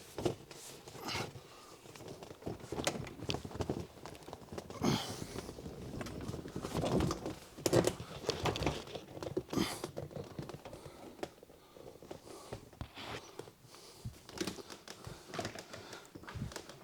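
Rustling, crinkling and scraping of a fabric-covered car headliner panel as it is worked free and slid out of the car, with irregular knocks and clicks throughout, busiest near the middle.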